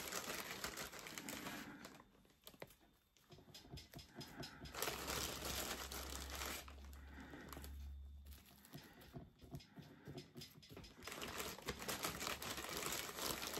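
Faint, irregular rustling and crinkling of moss being pulled apart and pressed in by hand, with small clicks, pausing briefly twice.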